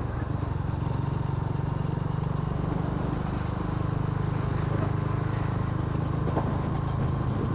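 Motorcycle engine running steadily while riding, with a fast, even pulsing beat.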